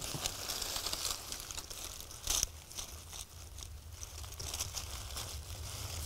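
Dry fallen leaves crinkling and rustling as they are cleared away from the forest floor, with one louder crunch about two seconds in.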